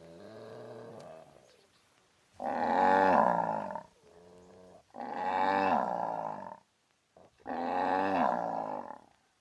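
Three loud, drawn-out animal calls, each about a second and a half long and falling in pitch, with short quieter gaps between them. They follow the faint tail of an earlier call.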